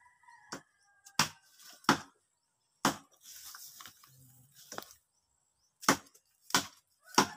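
Sharp chopping strikes of a hand blade into wood and brush, six in all, three in the first half and three near the end, with a rustle of vegetation between them.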